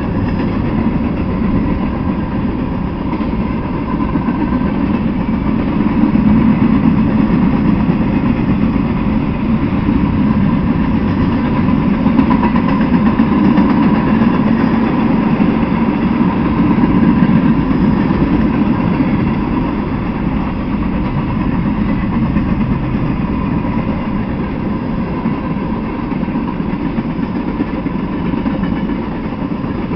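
Freight train of covered hopper and tank cars rolling past: a steady, continuous rumble of steel wheels on rail that swells slightly midway and eases a little near the end.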